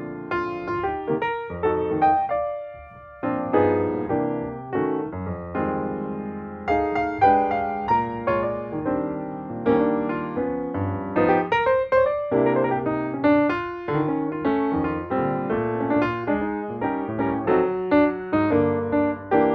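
Background piano music, notes struck in a steady flowing pattern, with a short pause about two and a half seconds in.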